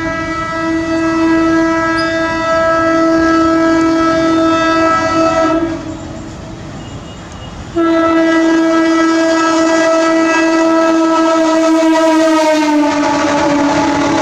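Train horn sounded in two long, steady blasts. Near the end the second blast drops slightly in pitch as the train draws level, and the rumble and clatter of coaches running over the rails comes up.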